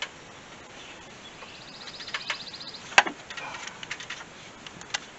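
Metal hand tools clicking and clinking under the hood of a truck, with a quick run of even ticks about two seconds in and a sharper click at about three seconds.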